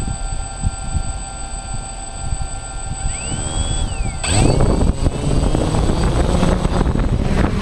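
Quadcopter drone's electric motors and propellers spinning up to a loud steady whirring about four seconds in. Before that there are faint steady high whines and a brief rising-then-falling tone.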